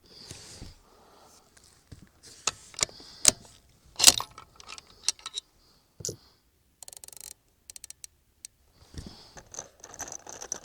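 Metallic clicks and clacks from handling a bolt-action .308 rifle between shots, the loudest about four seconds in. Near the middle come two short runs of quick, even clicking.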